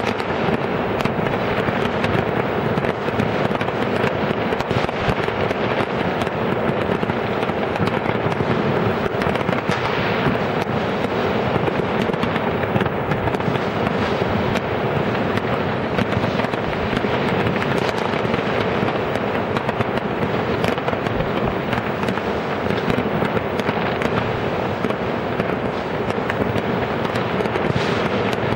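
Many fireworks and firecrackers going off at once, a dense, continuous crackle of overlapping bangs that never lets up.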